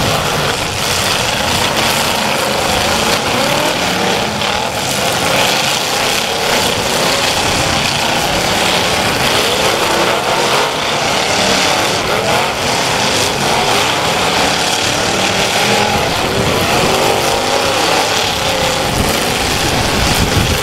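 Several demolition derby cars' engines running and revving at once, their pitches rising and falling over one another.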